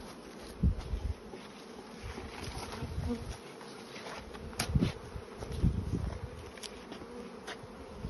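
Honeybees buzzing in numbers around broken-open hives, a steady hum. A few low thumps are the loudest sounds, one just under a second in and two more around the middle, with some sharp clicks.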